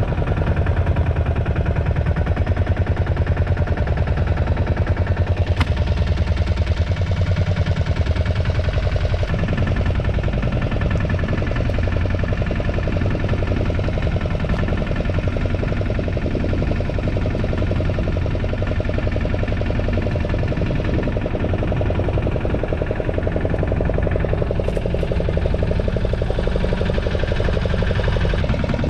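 Fishing boat's engine running steadily at an even, unchanging pace.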